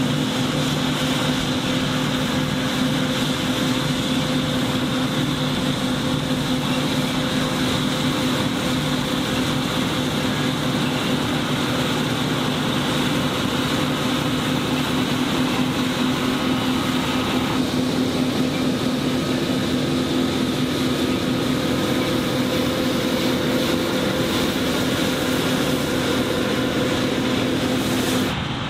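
John Deere W540 combine harvester running steadily while harvesting barley: a constant engine and threshing hum with a few steady tones. The sound changes abruptly near the end.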